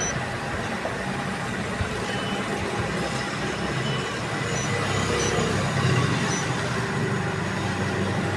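Tractor engine running, a steady low rumble that grows a little louder past the middle.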